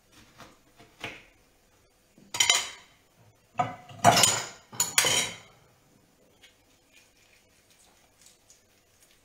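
Cutlery and crockery clinking and clattering against plates, a handful of sharp strikes with a short ring between about one and five seconds in, the loudest around the middle, then only faint light taps.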